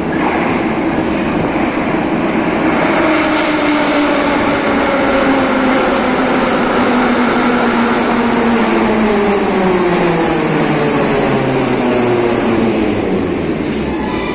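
Moscow Metro 81-717.5M/714.5M subway train running into the platform and slowing, its traction motor and gear whine falling steadily in pitch over the wheel and rail rumble. A higher squeal from the brakes sets in at the very end as it comes to a stop.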